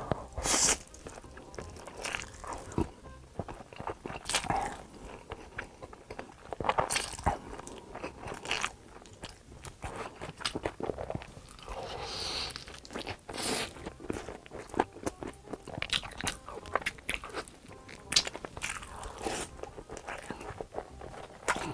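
Close-miked eating: a person biting, crunching and chewing food in irregular bursts.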